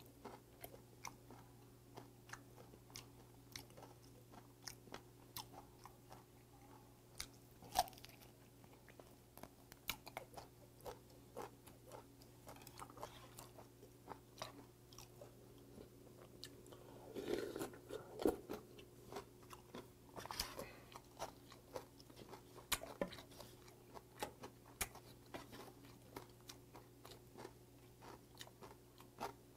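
Close-up mouth sounds of someone chewing raw damselfish eaten bone-in: small wet crunches and clicks as the tough little bones are bitten through, with a louder noisy stretch a little past halfway, over a faint steady hum.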